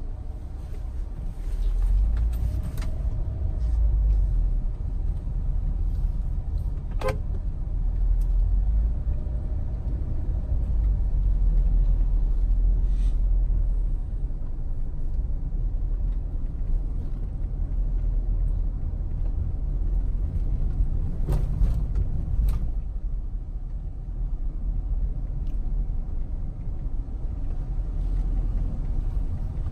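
Low, steady rumble of a car driving slowly on a paved road, heard from inside the cabin. Three brief sharp clicks cut through it, one about seven seconds in and two close together a little past twenty seconds.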